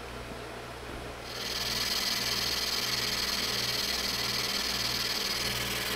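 Metal lathe running with a boring bar cutting the bore of a cast iron back plate. The motor's steady hum is joined about a second in by a steady hiss of the cut as the tool bites, then holds even.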